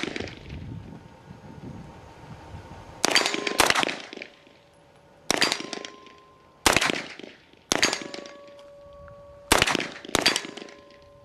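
MP5 submachine gun fired in short strings about eight times, one to two seconds apart. Some of them are followed by a clear, sustained clang as the steel sign targets ring from hits.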